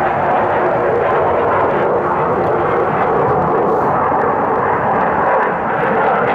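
Aircraft flying over from an air base, a loud, steady rushing noise with no breaks.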